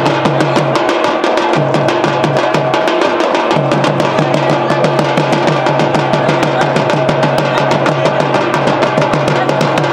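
Loud drum-led music: fast, even drumbeats, about six a second, over a steady held tone.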